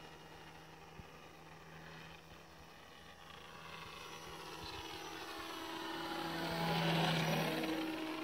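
Electric motor and 10x6 propeller of a 1.10 m Depron RC Nieuport 11 model biplane flying past, a steady whine that grows louder as it comes close, peaks about seven seconds in, then begins to fade.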